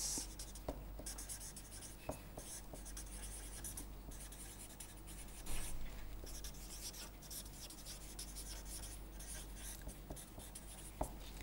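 Felt-tip marker writing on paper: faint scratchy pen strokes that come and go as words are written, with a few small clicks and taps.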